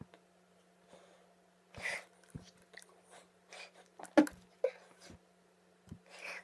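Scattered soft mouth and breath noises and hand sounds from a person signing, with one sharper click about four seconds in, over a steady low electrical hum.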